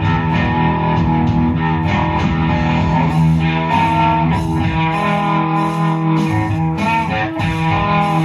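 Electric guitar playing rock-style music over a steady held low note.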